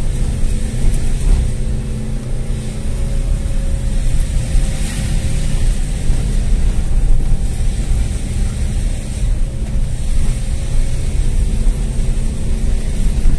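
Car engine running steadily under load as the car climbs a steep hill road, heard from inside the cabin with a low rumble of road noise.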